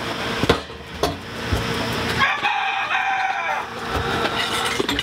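A rooster crowing once, a single drawn-out crow of about a second and a half starting about two seconds in, with a few scattered knocks around it.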